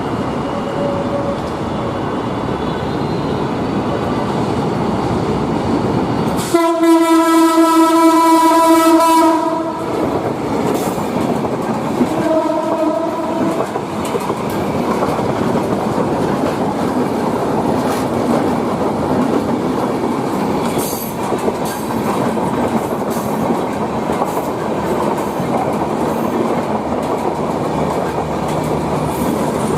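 Ekota Express passenger train passing a level crossing, its wheels rumbling and clickety-clacking on the track. About six seconds in, its horn is blown loudly in one long blast of about three seconds, followed by a shorter blast a few seconds later.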